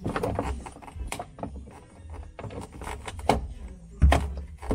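Irregular knocks and clunks of a DeWalt Atomic cordless drill-driver working on screws in a refrigerator's plastic interior panel. The loudest clunk comes about four seconds in.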